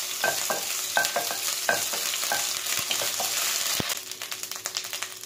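Chopped garlic and ginger sizzling in hot oil in a stone-coated nonstick kadai, stirred with a wooden spatula that scrapes and taps against the pan. The stirring stops after about three and a half seconds while the sizzling carries on.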